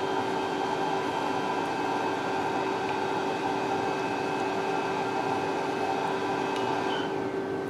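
Steady electrical and mechanical hum from a running CTL69 body-contouring machine, with several constant tones over a fan-like noise. Part of the hum cuts out about seven seconds in.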